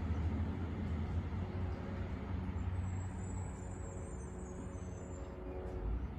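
Road vehicle noise: a steady low engine rumble with tyre and traffic haze, easing off slightly, and a faint thin high whine in the middle.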